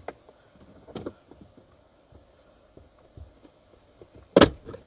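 Clicks of a screwdriver prying at a plastic dash speaker grille: a faint click about a second in, then a loud sharp snap near the end as a retaining clip pops loose.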